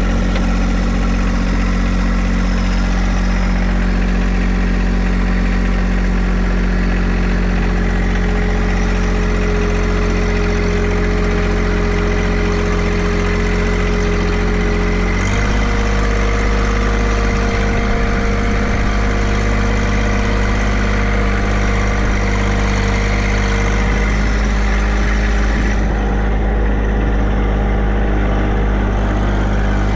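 John Deere 2025R compact tractor's three-cylinder diesel engine running steadily while the tractor drives along. Its note changes abruptly about halfway through.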